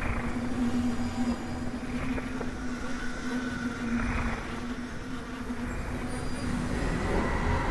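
Horror sound-effect ambience: a steady low drone over a dense rumbling noise, with faint high tones drifting through. Near the end the drone drops away as a new rumbling layer comes in.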